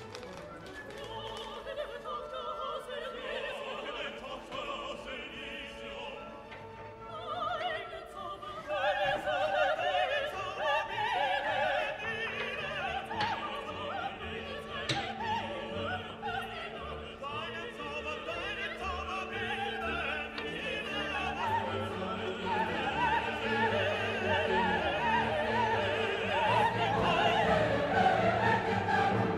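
Classical background music: an operatic voice singing over an orchestra, growing louder about a third of the way in.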